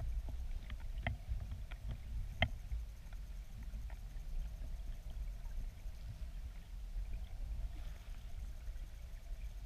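Low, steady rumble of river water flowing past an underwater camera housing, heard muffled from beneath the surface. A few sharp clicks come in the first few seconds, the loudest about two and a half seconds in.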